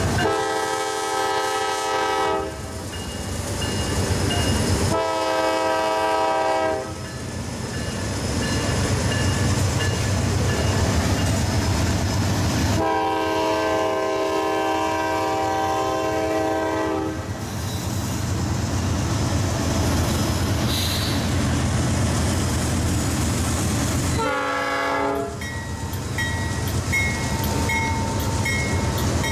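Norfolk Southern 4491, a GE AC44C6M diesel locomotive, sounding its multi-note air horn in four blasts (two of about two seconds, a long one of about four seconds, then a short one) over the steady low rumble of its engine as it rolls slowly past.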